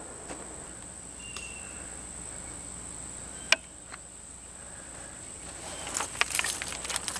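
Insects shrilling steadily on one high note, with a single sharp click about three and a half seconds in and scattered crackling rustles near the end.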